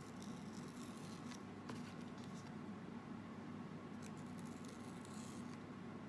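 Folded banana leaf being cut and handled: faint crisp rustling scrapes in a few short spells, with a sharp tick a little under two seconds in, over a steady low hum.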